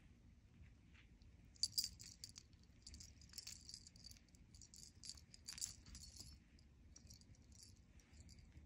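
A cat toy jingling and rattling in short clusters of light clicks as a kitten bats at it, loudest near two seconds in and again around five and a half seconds, then dying away.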